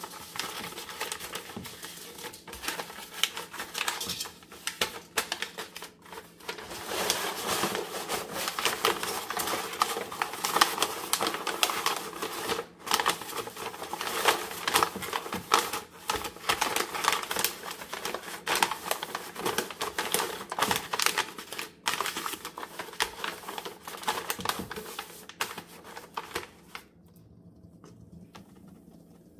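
Baking paper crinkling and crackling as hands press and fold it into a round earthenware pan, a dense run of crackles that stops about three seconds before the end.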